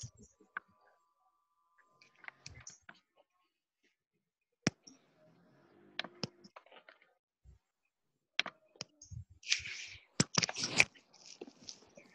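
Scattered, irregular clicks and taps from a computer keyboard and mouse, with a faint steady tone in the first two seconds. Near the end, a brief rustle and a quick cluster of louder clicks.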